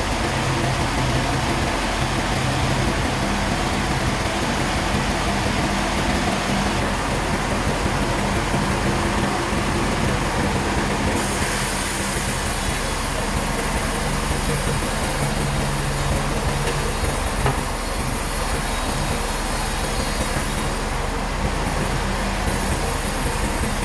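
Sawmill machinery running steadily, a continuous din of noise over a constant low hum.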